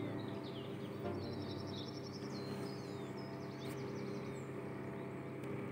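Soft stirring of tomatoes and onions in a non-stick kadai with a wooden spatula, over a steady low hum, with birds chirping and trilling in the background.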